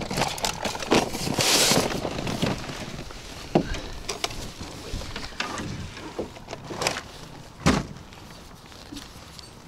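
Scattered clicks and knocks of fishing tackle being handled in a boat, with a brief rushing hiss about a second and a half in and sharper knocks about three and a half seconds in and near the end.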